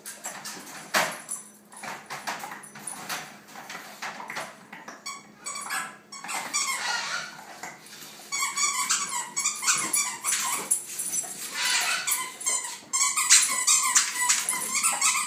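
Bulldog puppy chewing and shaking a plush squeaky toy: short high-pitched squeaks in quick runs, coming thicker in the second half, with a few knocks early on.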